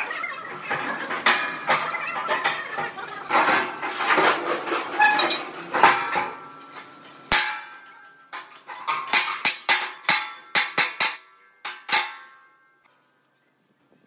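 Irregular metal clanks and hammer strikes on steel, each ringing briefly. They come thick and fast at first, thin out to separate strikes after about eight seconds, and stop about two seconds before the end.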